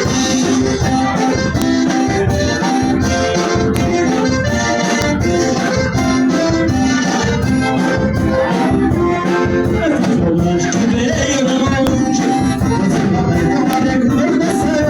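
Accordion playing a lively tune over a steady rhythmic beat.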